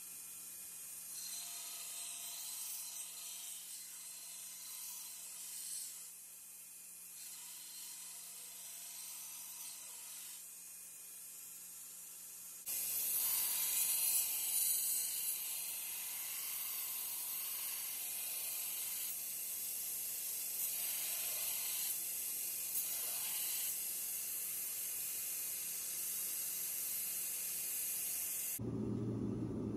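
2x72 belt grinder with a coarse 36-grit belt grinding the bevels of a leaf-spring steel knife blade: a steady abrasive hiss over the machine's steady hum. It gets louder about 13 seconds in. Near the end it switches suddenly to a deeper noise.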